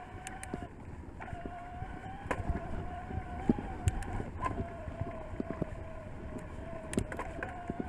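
Shimano Steps E8000 mid-drive motor on an electric mountain bike whining steadily under load on a climb, cutting out briefly about a second in. Scattered sharp clicks and knocks sound over it.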